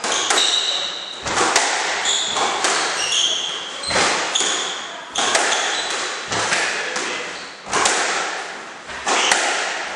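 Squash rally: the ball cracks off rackets and the court walls in quick, echoing succession, about one to two hits a second, with short high squeaks of shoes on the court floor between the hits.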